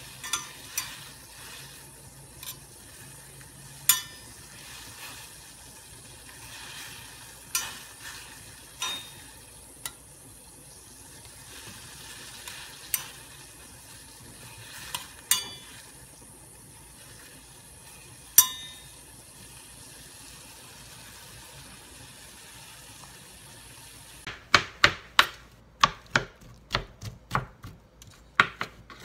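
Broccoli florets blanching in a stainless steel pot of boiling water: a steady bubbling hiss with occasional sharp clinks. About 24 seconds in, it gives way to a kitchen knife rapidly chopping the cooked broccoli on a cutting board, about three strokes a second.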